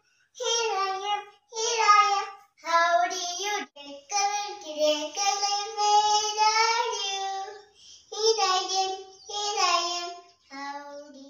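A young girl singing a children's colour rhyme unaccompanied, in short sung phrases with brief pauses between them.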